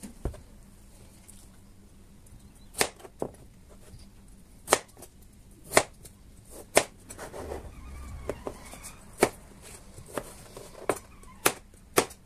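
Chef's knife cutting through peeled raw potatoes and knocking down on a plastic cutting board: sharp, irregular knocks, roughly one a second, a few coming in quick pairs.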